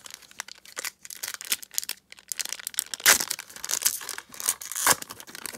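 A 1991-92 Upper Deck basketball card pack being torn open by hand: its foil wrapper crinkles and rips in a run of short tears, loudest about three seconds in and again near five seconds.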